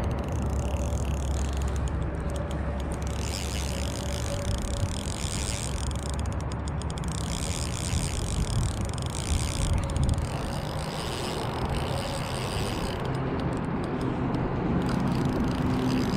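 Spinning reel being cranked in three spells of a few seconds each while a hooked trout is reeled in. Steady wind rumble on the microphone runs underneath.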